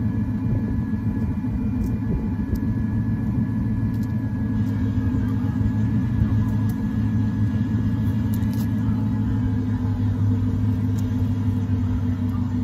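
2006 Dodge Charger's engine idling steadily, a low rumble from the exhaust tips. It is running to burn off a Sea Foam treatment that has soaked in the intake, the stage at which the exhaust turns smoky.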